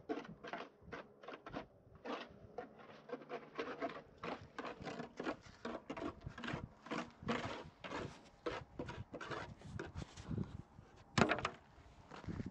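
A steady run of short, irregular scrapes and knocks, a few each second, with one louder knock near the end.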